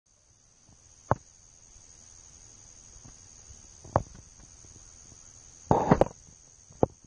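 A steady high-pitched insect chorus, with sharp knocks about one and four seconds in, a short run of louder knocks and rustling just before six seconds, and one more knock near the end.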